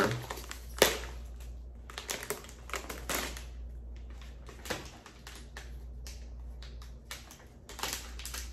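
Plastic and foil snack bags crinkling and crackling as they are handled and the popcorn bag is opened, in irregular rustles and clicks with a sharper crackle just under a second in.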